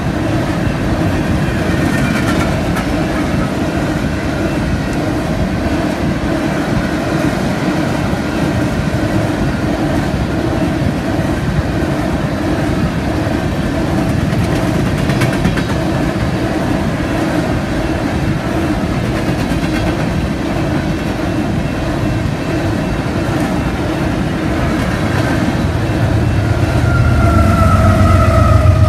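BNSF coal train's cars rolling past: a steady rumble with wheel clatter on the rails. Near the end it grows louder, with a deeper rumble and a whine that falls in pitch.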